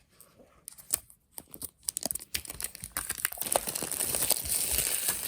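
Plastic wrap being torn and peeled off a cardboard product box, crinkling. A few scattered crackles come first, then it builds to dense crinkling for the second half.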